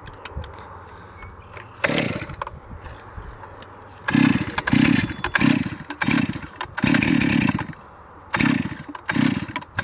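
Stihl MS261C 50cc two-stroke chainsaw being pull-started again and again, its recoil starter cranking the engine in a series of short bursts without it catching and running.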